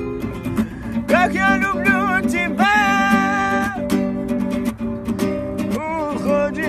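Acoustic guitar strummed, accompanying a voice singing long held, wavering notes of the song.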